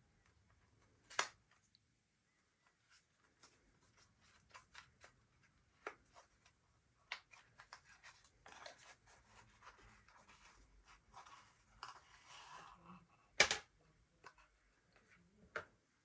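Quiet handling of a Swiss Army knife's packaging: scattered clicks and taps, a stretch of packaging rustling in the middle, and three sharper knocks, the loudest one near the end.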